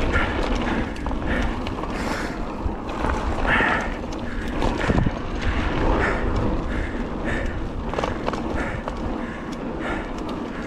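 Electric mountain bike rolling along a dirt and gravel trail: tyre noise and a steady low wind rumble on the microphone, with frequent clicks and rattles from the bike over the rough ground.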